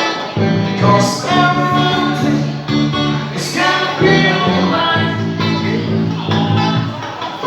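Live band music with guitar, and a voice singing over it in places.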